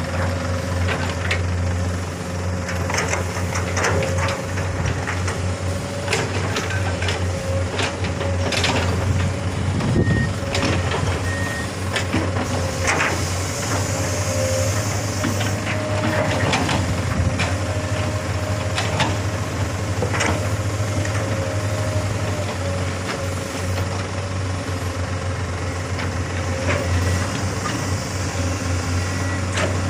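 Komatsu long-arm hydraulic excavator running steadily under load while its bucket scrapes and smooths an earth slope, with scattered knocks of soil and stone. Two short high beeps about ten and eleven seconds in.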